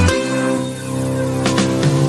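Background music: held chords with no drum beat, and a single sharp hit about one and a half seconds in.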